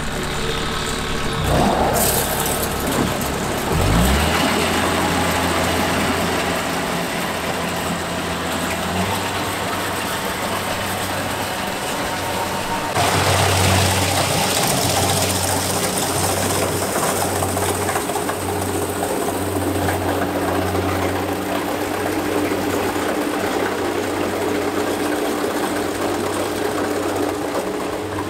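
Farm machine's engine running steadily in a rice paddy. Its low hum begins to pulse about a third of the way in, and a louder rushing noise joins it about halfway.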